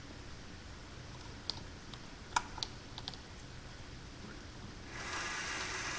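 A few sharp clicks from the lathe's switches and controls, then about five seconds in the lathe's motor starts and runs steadily.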